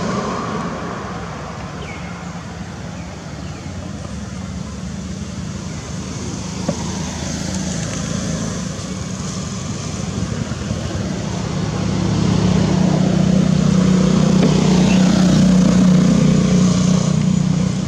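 Road traffic: a motor vehicle engine running with a steady low hum, getting louder about two-thirds of the way in and easing off near the end. There is one brief click about a third of the way in.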